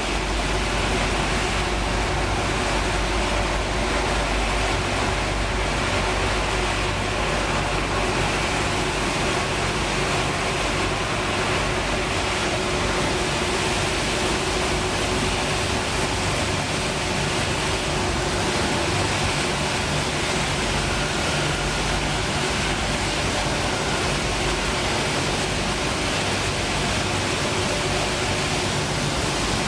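Dog food production line machinery running: a steady, even mechanical noise with a faint hum and no distinct knocks or changes.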